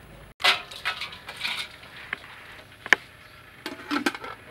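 Water splashing and sloshing in a stainless steel bowl as a slab of boiled pork belly is put into it, with a single sharp metal clink about three seconds in.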